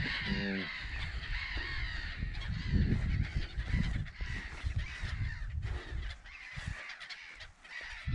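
A nesting colony of gulls calling in alarm overhead, many harsh calls overlapping without a break.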